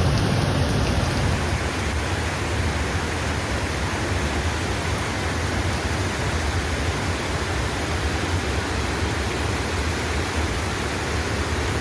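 Steady rush of water, an even noise with a heavy low rumble, typical of floodwater or torrential rain.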